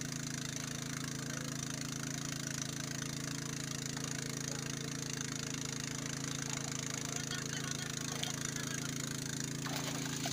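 A small engine running steadily with an even, unchanging drone.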